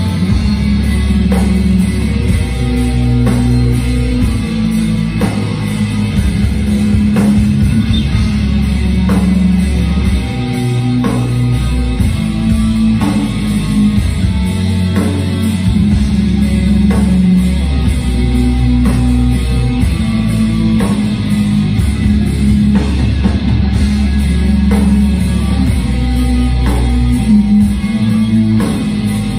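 Metal band playing live: distorted electric guitars and a drum kit at a slow, heavy pace, with drum hits about once a second, heard from within the crowd in the concert hall.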